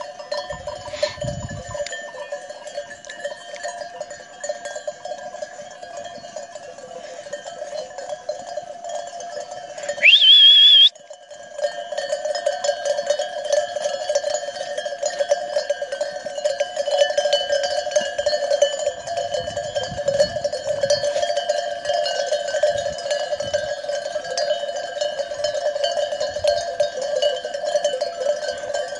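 Many livestock bells worn by a grazing flock of sheep and goats, clanking and jingling without a break. About ten seconds in, a loud high tone rises and wavers for about a second. The bells drop out briefly just after it.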